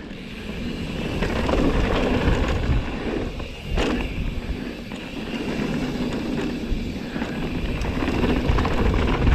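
Mountain bike running down a rough dirt trail: tyres on dirt and the bike rattling over the bumps, with one sharp knock about four seconds in.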